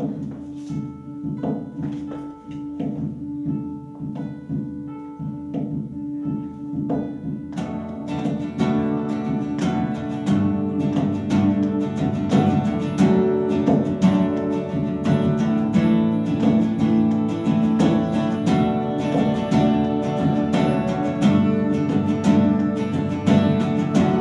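Instrumental song intro on acoustic guitars, accordion and cajon. A guitar picks sparse single notes at first, then the fuller band comes in about seven seconds in and the music grows louder.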